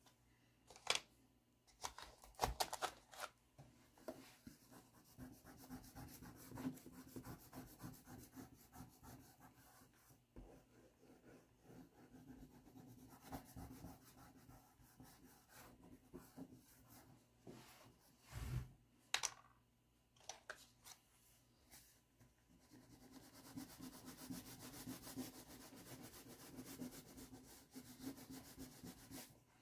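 Faint scratchy rubbing of a pastel stick worked back and forth across drawing paper to colour in an area, with a few soft knocks here and there.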